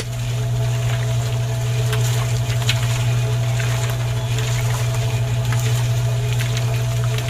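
A small motor switches on and runs with a steady low hum.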